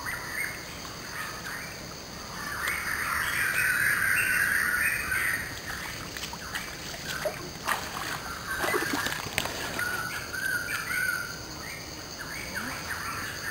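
Birds chirping and calling over trickling stream water, with the loudest stretch of calls a few seconds in and short repeated calls later.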